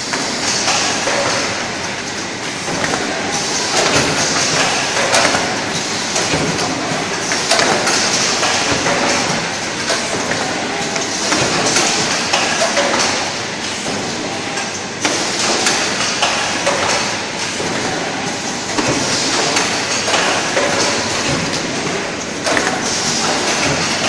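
Automatic rigid box making machine running, a continuous busy clatter of many quick mechanical knocks and clicks from its moving parts.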